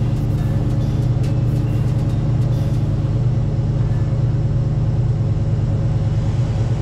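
Ram 1500's 5.7-litre Hemi V8 idling cold through a muffler-delete exhaust, a steady, even, deep rumble with no revving.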